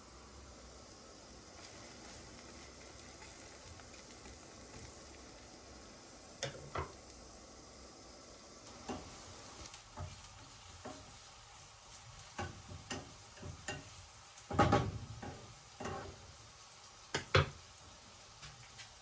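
Food sizzling in a frying pan while it is stirred, with a string of sharp knocks and clinks of a utensil against the pan starting about a third of the way in; the loudest knocks come near three-quarters of the way through.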